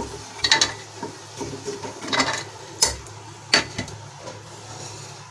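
A spoon scraping and knocking against a frying pan and a plate as roasted fox nuts (makhana) are scooped out of hot ghee. There are a few sharp clinks, about half a second, two, nearly three and three and a half seconds in.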